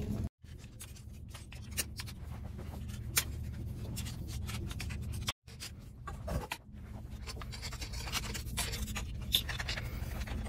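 Scattered light clicks and scratches as a metal hex driver turns and scrapes against the bolts of an aluminium RC monster truck axle, loosening them by hand. The sound cuts out briefly twice.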